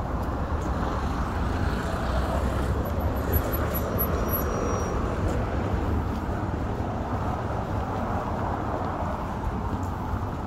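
Steady city street ambience: a constant hum of road traffic with no distinct events.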